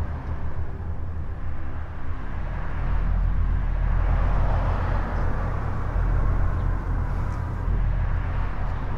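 Steady outdoor background noise: a continuous low rumble with an even hiss above it, slightly louder after the first few seconds.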